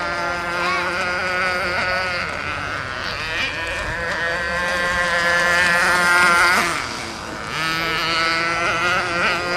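Motorboat engine running, a steady drone whose pitch wavers slightly, rises, then drops about seven seconds in before settling again.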